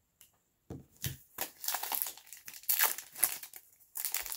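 Foil wrapper of a baseball card pack being crinkled and torn open by hand, starting under a second in.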